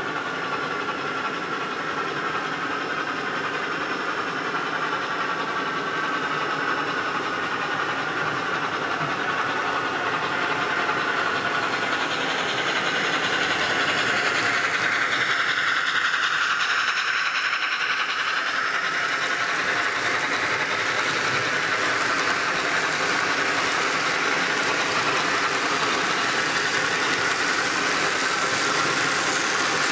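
Model train rolling past on the track: a model of Chesapeake & Ohio 4-8-4 steam locomotive No. 614 and its freight cars make a steady whirring, rattling rolling noise. It swells as the locomotive nears, passes close about halfway through, and carries on as the cars roll by.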